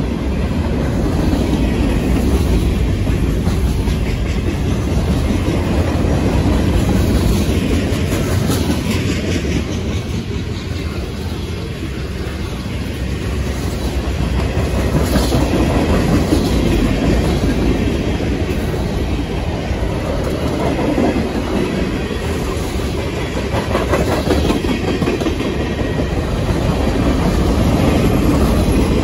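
Freight train cars (covered hoppers, tank cars and boxcars) rolling past close by, their steel wheels on the rails making a steady, loud rumble that swells and eases slightly as the cars go by.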